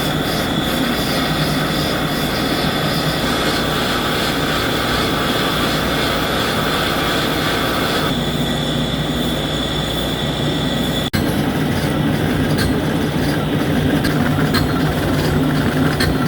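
CNC machine tool cutting a GCD500 ductile cast iron tire mold segment: steady machining noise with a high, steady whine from the cut. About eleven seconds in the sound breaks off for an instant and goes on without the whine.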